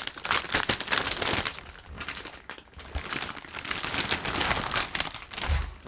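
Packaging being pulled open by hand: an irregular, continuous rustle and crinkle of plastic wrapping, with a dull thump near the end.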